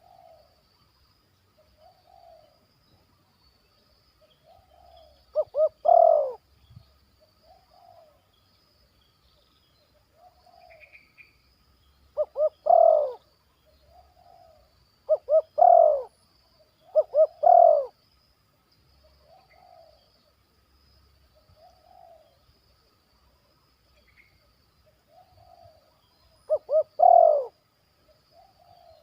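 Spotted dove (tekukur) cooing: five loud phrases, each two or three short clipped notes followed by a longer coo, with softer single coos about every two seconds between them.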